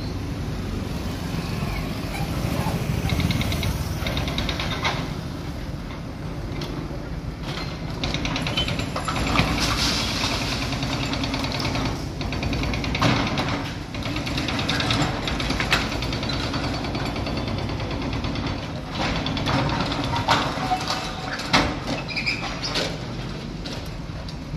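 Diesel engines of an excavator and a backhoe loader running steadily while they demolish a concrete building, with repeated sharp crashes and knocks of breaking concrete and metal, the loudest about halfway through and again near the end. Crowd voices underneath.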